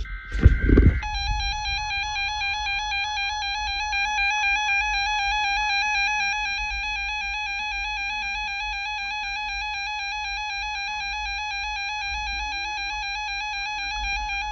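Emergency Alert System alert: a second of warbling digital header data bursts, then the long steady attention tone held through to the end.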